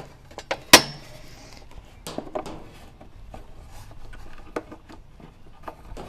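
A sharp metallic clack as the espresso machine's stainless-steel drain box is picked up and handled, followed by a few lighter clicks and taps.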